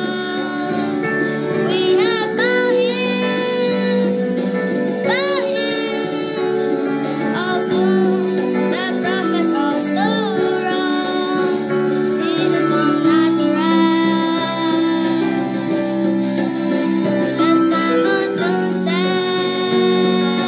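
A young girl singing a melody with wavering, gliding pitch over sustained instrumental chords.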